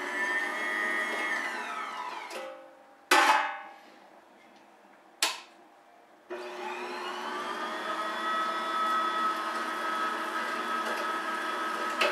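Cabela's Deluxe electric meat grinder's motor whining, then winding down after being switched off. Two sharp clicks follow. The motor then starts up again and runs steadily for about six seconds, which fits its reverse function being held.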